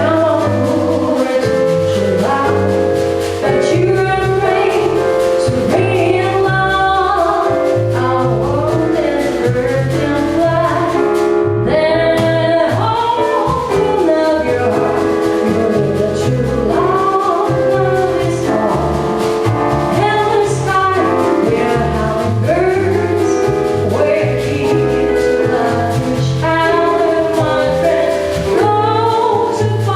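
Live jazz / bossa nova song: a singer's voice over piano chords and a bass line, played without a break.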